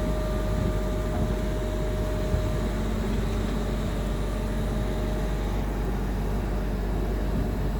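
Heavy harvest machinery running steadily under load, a continuous deep mechanical drone with a faint steady whine that fades out about five seconds in.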